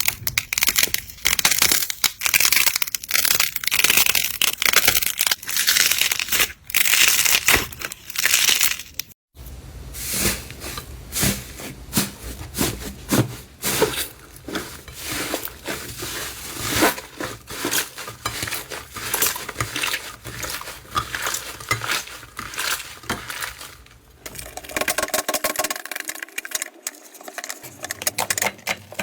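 Slime being squished and pressed, a dense run of crackling, popping clicks with a short silent break about a third of the way in.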